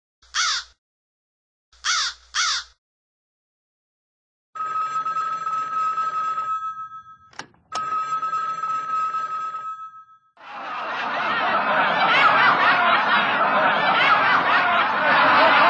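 Three crow caws, one and then two close together; then a telephone ringing twice, about two seconds each ring, with a sharp click between them. From about ten seconds in, a dense clamour of chattering and laughing voices swells up and stays loud.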